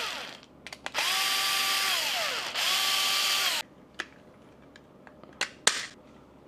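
Small DC motor and gear train of a disassembled electric water gun running in short bursts with a whine. A run winds down at the start, then come two runs of about a second and a half and a second, the first winding down and the second cutting off sharply. A few light clicks follow.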